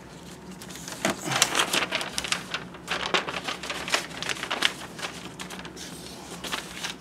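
A sheet of paper being fetched and handled: a run of irregular light rustles and clicks, busiest in the first few seconds and thinning out toward the end.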